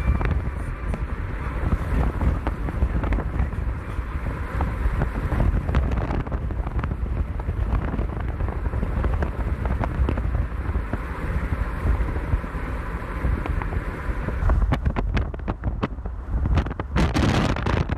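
Thunderstorm: thunder rumbling under steady wind noise on the microphone, with a run of sharp cracks near the end.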